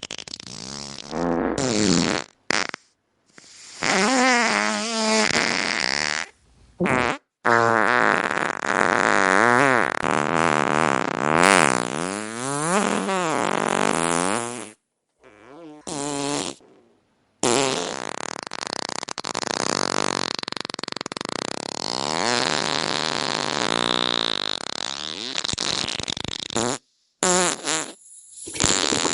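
A string of fart sounds, some short and two lasting several seconds, their pitch wavering and sliding up and down, separated by brief silent gaps.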